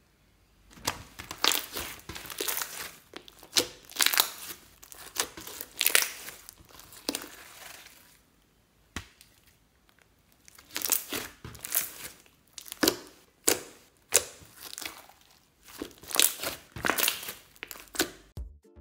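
Clear slime being kneaded and pressed by hand, in irregular bursts of sound, with a pause of about two seconds around eight seconds in before more bursts.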